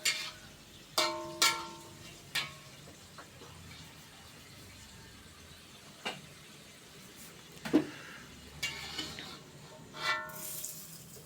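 Metal spatula knocking and scraping against a pan while tomato sambal is stir-fried, several sharp knocks, the first two ringing briefly, over a faint steady sizzle.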